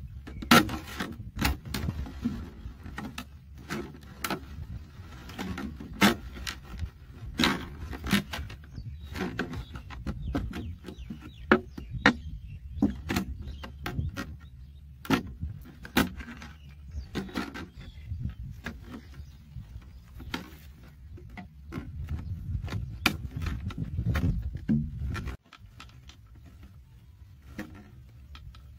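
Scissors snipping through a clear plastic bottle, with sharp irregular clicks and crackles of the stiff plastic as it is cut and its flaps pressed, over a low rumble that drops away abruptly near the end.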